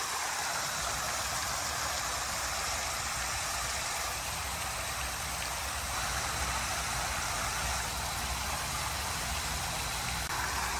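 Water raining down from the cooling tower's fill and splashing steadily into the basin, with a low rumble underneath. This is the tower draining down after its pump has shut off, the returning water raising the basin level toward the overflow.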